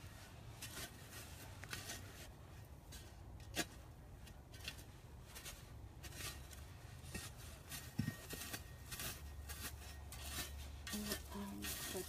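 Garden fork digging and turning loose soil: a run of irregular short scrapes and crunches as the tines go through the dirt, with two sharper clicks, about three and a half seconds in and around eight seconds. A low steady rumble sits underneath.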